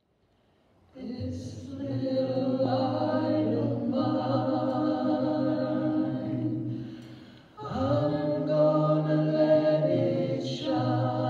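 A cappella choir singing long, held chords in two phrases, starting about a second in, with a short breath break about two-thirds of the way through.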